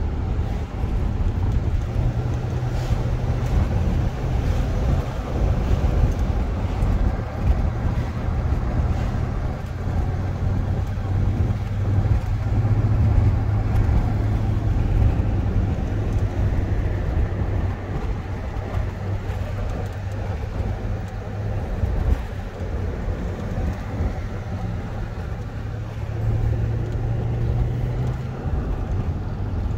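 Car engine and tyre noise heard from inside a moving car: a steady low hum whose pitch drifts a little as the speed changes, over continuous road rumble.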